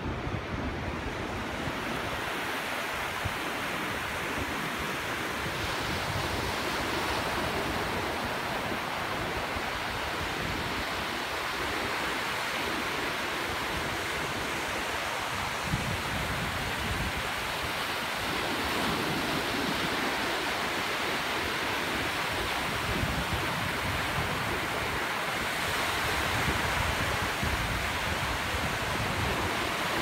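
Ocean surf: small waves breaking and washing up the sand close by, a steady rushing hiss with no pause.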